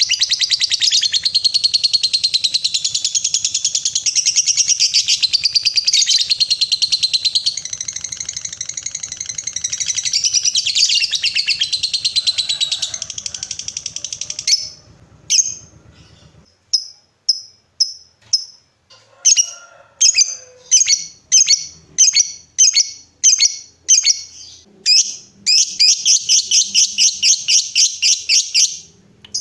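Lovebird giving its long, rapid chattering trill (the 'ngekek') for about fourteen seconds, then breaking off into separate short, high chirps that speed up into a quick run near the end.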